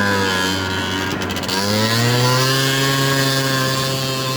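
A 70cc big-bore two-stroke scooter engine being ridden: it eases off briefly about a second in, then revs back up and holds a steady high-pitched buzz.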